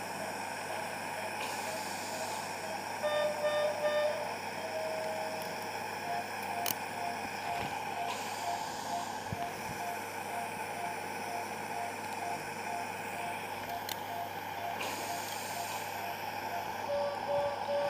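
Anaesthetic patient monitor beeping with each heartbeat, a short single-pitch beep about twice a second that steps slightly higher in pitch about six seconds in, over a steady operating-theatre hum. A louder, longer beep with several tones sounds around three seconds in and again near the end, and a couple of sharp clicks are heard.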